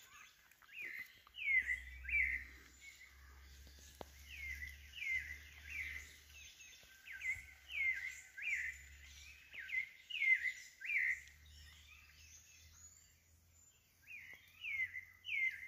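A bird calling over and over: short falling chirps in quick runs of about three notes, repeated every second or two with a gap in the middle. A low rumble comes and goes underneath.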